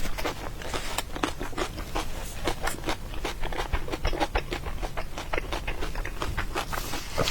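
A person chewing and eating food close to the microphone: a steady run of quick, irregular wet mouth clicks and smacks.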